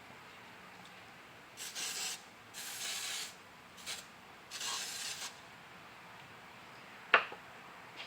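Four short rasping rubbing strokes of a flat shoestring polishing the crankshaft journals, then a sharp click near the end.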